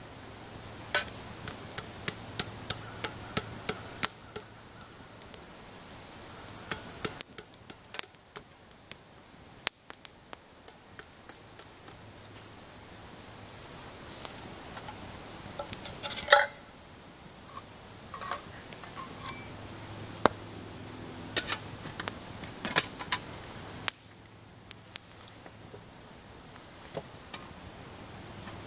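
Wood campfire crackling, with sharp, irregular snaps and pops over a steady high hiss. A louder metallic clatter comes about halfway through, from a steel pot being handled by the fire.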